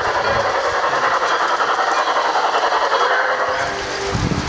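LGB G-scale model train running along its track, with a steady, rapid clickety-clack of its wheels on the rails.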